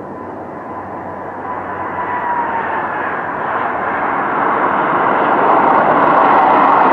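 Airbus A330's twin jet engines on touchdown and landing rollout: a steady rush that grows louder throughout, with a whine that falls in pitch about two seconds in.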